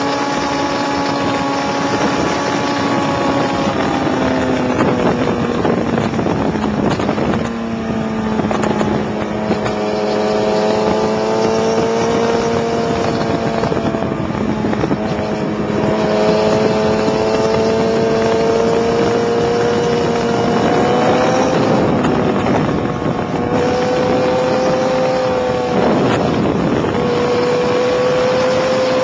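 Sport motorcycle engine running hard at track speed, heard from on board with wind rushing over the microphone. The engine note slides down over the first several seconds, breaks off near 7 s, then holds and climbs slowly, with another break near 26 s.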